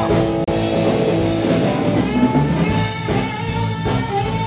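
Rock band playing, with guitar and drum kit; the sound drops out for an instant about half a second in.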